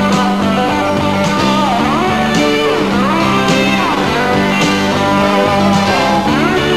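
Rock music instrumental passage: guitar over a steady bass line and drums, with a sharp drum hit about once a second and notes sliding down and back up.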